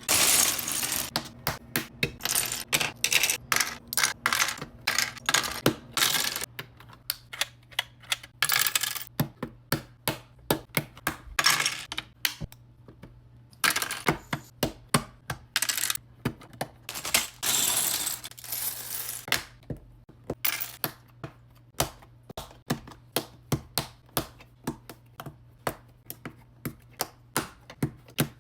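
Plastic Lego pieces clattering and bricks clicking into place: a long run of sharp clicks broken by several rattling stretches as loose pieces are shuffled.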